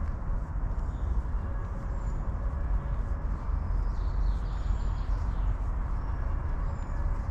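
Steady low rumble with faint, short bird chirps scattered throughout.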